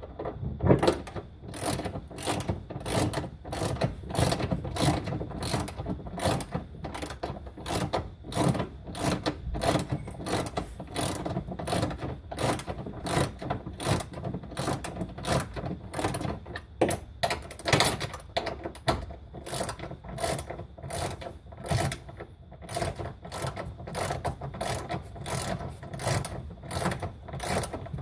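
Hand socket ratchet clicking in steady back-and-forth strokes, about two a second, as a bolt is tightened.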